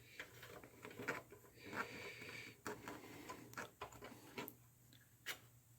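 Faint clicks and taps of hands working on parts inside a Macintosh Classic's case, with a short scraping rasp about two seconds in.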